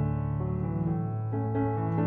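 Background piano music: a melody of notes changing a few times a second over held low notes.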